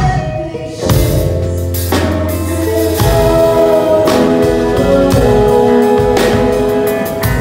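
A live band playing: drum kit with cymbal hits under guitars holding pitched notes, at full volume.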